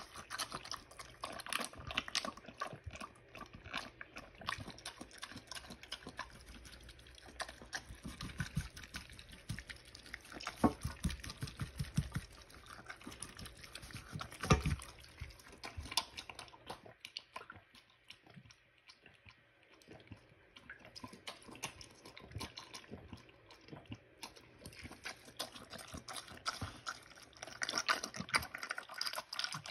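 Mini pig eating pellet feed that it wets into slop in a stainless steel bowl: fast wet chewing, slurping and smacking with many small clicks. The loudest click comes about halfway through, followed by a short quieter lull.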